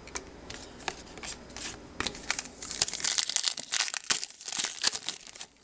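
A trading-card pack wrapper crinkling and tearing in the hands as it is opened: a run of sharp crackles that grows dense about halfway through and stops just before the end.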